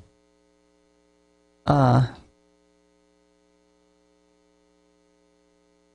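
Near silence with a faint, steady electrical hum; a man says a single short word about two seconds in.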